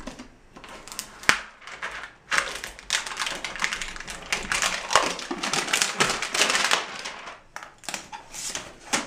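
Handling noise of an iMac on its cardboard box and foam packing: irregular knocks, clicks and scraping rustle as the computer is turned and lifted off its foam supports, busiest in the middle.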